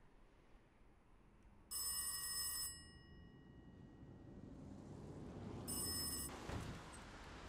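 A bell rings twice, about four seconds apart: a ring of about a second, then a shorter one, the first leaving a brief metallic ringing tail. A dull thump comes just after the second ring.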